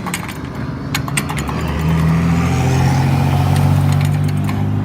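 Road traffic: a car's engine is heard as it accelerates past, swelling loudest in the middle and later part, with a few sharp clicks near the start and around a second in.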